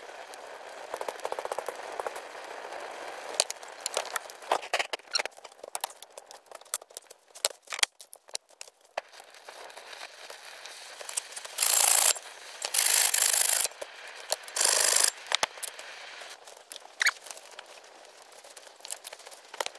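A small campfire of dry twigs being lit, crackling and snapping in many irregular clicks. About twelve seconds in come three short, loud bursts of hiss that start and stop abruptly.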